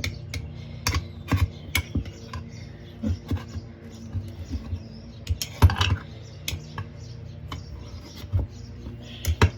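Screwdrivers prying a lawn mower tire's bead over the rim: irregular clicks, taps and scrapes of metal against rim and rubber, the loudest a little past halfway.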